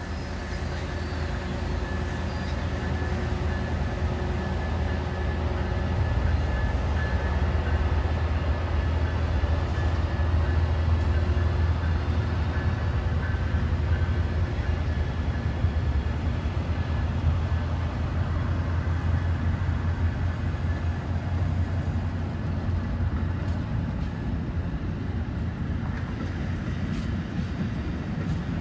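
Amtrak passenger train's diesel locomotives and cars rumbling past, the sound building up and then slowly easing off.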